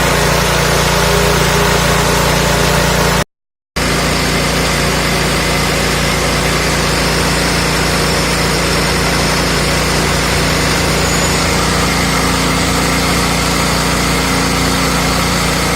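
Small 5.5 hp petrol engine running steadily, driving a mini rice-hulling machine. The sound drops out completely for about half a second around three seconds in, then resumes unchanged.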